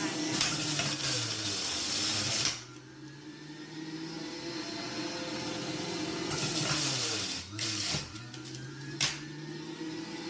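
Electric centrifugal juicer running, with loud grinding bursts as fruit and carrots are pushed down its feed chute. The longest bursts come at the start and about six seconds in, with two short ones after. The motor's hum drops in pitch under each load and recovers.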